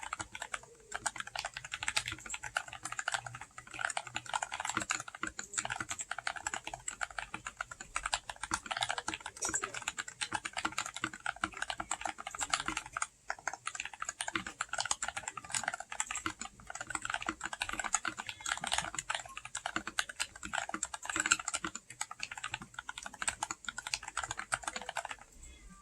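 Fast, continuous typing on an FL Esports MK870 mechanical keyboard with factory-lubed Jwick Ult Black linear switches, stock stabilisers and Leopold keycaps, the keystrokes running together into a dense clatter with a brief pause about halfway and stopping just before the end. Recorded on a phone, so the sound is somewhat muffled.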